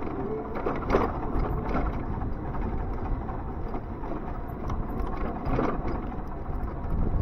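Ion Mobility M1S electric motorcycle ridden slowly over a rough lane: a steady low rumble of tyre and road noise and wind on the microphone, with no engine note.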